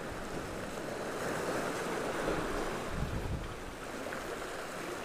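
Small waves washing against the jetty's rocks, a steady rushing that swells in the middle, with wind buffeting the microphone about three seconds in.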